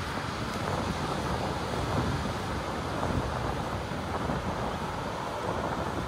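Wind buffeting the microphone: a steady, fluctuating rumble with no distinct events.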